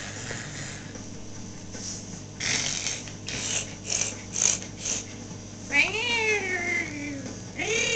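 A domestic cat meowing: one long drawn-out meow that rises then falls, about six seconds in, and a second one starting near the end. Before it come a few short rasping noises.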